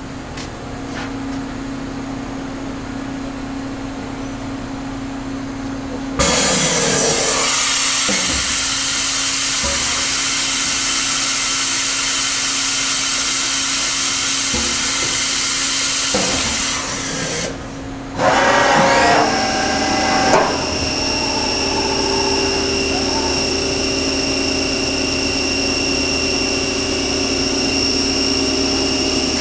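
YCM Supermax Max-1 Rebel CNC vertical machining center running a program: first a steady machine hum, then about six seconds in a loud, even hiss that lasts about eleven seconds. After a short break and a brief burst, the 10 hp spindle runs with a steady high whine, at about 4,500 RPM.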